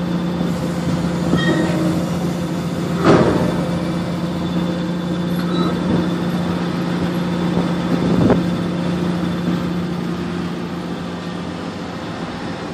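Steady drone of heavy lifting machinery running while a hydraulic grab handles a concrete tetrapod, with two sharp knocks about three and eight seconds in.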